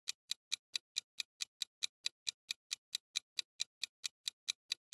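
Countdown-timer sound effect: sharp, clock-like ticks at an even pace of about four and a half a second, stopping abruptly near the end.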